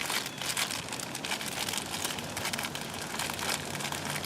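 Plastic parts bag crinkling and rustling as it is handled, a continuous run of small irregular crackles.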